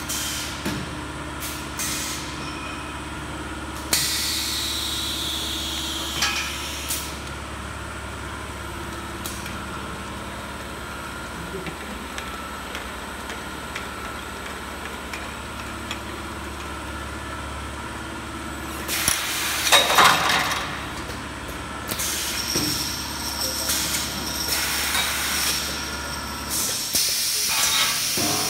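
Automatic beer bottling machine running: a steady low machine hum with clicks and knocks of the mechanism and repeated hisses of released gas. One hiss about four seconds in falls in pitch, a loud hiss comes about two-thirds of the way through, and the low hum cuts out near the end.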